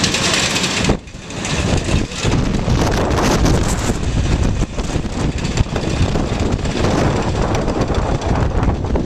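Strong gusty wind buffeting the microphone during a windstorm, loud and rumbling, with a brief lull about a second in.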